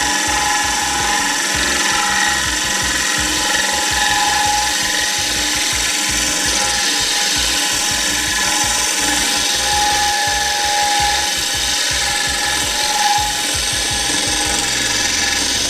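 Cordless drill running a Craftright diamond hole saw through aquarium glass, water-cooled, a steady grinding with motor whine. It cuts easily with the new saw and stops at the very end.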